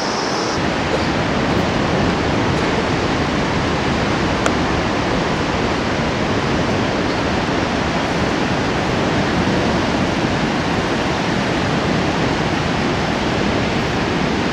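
Steady rushing of whitewater rapids on the Bhote Koshi river, an even noise with no break.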